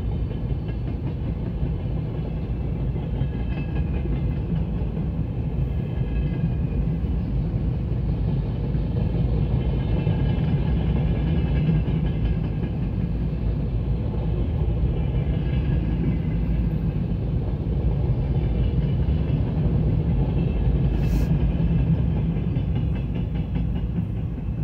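Freight train of open gondola coal wagons rolling past: a steady rumble and clatter of wheels on rail, a little louder through the middle and easing slightly near the end as the last wagons clear the crossing.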